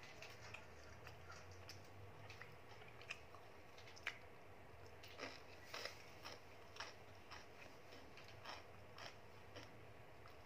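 Faint close-up chewing of a mouthful of food: scattered small mouth clicks, then from about halfway a steadier run of louder chews, roughly two a second.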